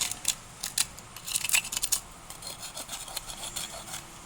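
Sparse light clicks with faint scraping, handling noise around the graphite exothermic welding mould as its lid is worked.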